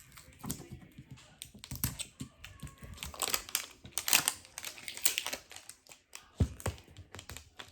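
Plastic wrapper of a toy capsule ball being peeled and crinkled by hand: irregular crackling and clicking, busiest about halfway through.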